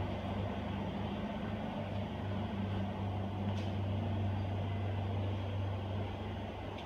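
Steady low hum of commercial kitchen machinery running, with a faint click about three and a half seconds in; the hum eases near the end.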